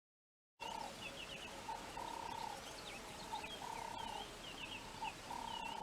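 Birds calling against a steady outdoor hiss: a repeated steady note, each held about half a second, with quick higher chirps between. It starts about half a second in.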